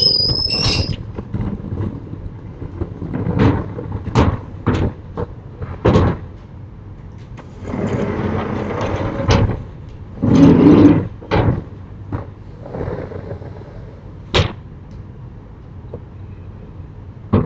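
Sliding wooden or metal storm shutters (amado) being run along their tracks and knocked shut: a series of sharp knocks and bangs, with two longer rumbling slides about 8 and 10 seconds in. A brief high squeal comes right at the start.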